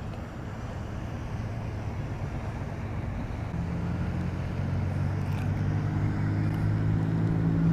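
A low, steady engine hum that grows gradually louder through the second half.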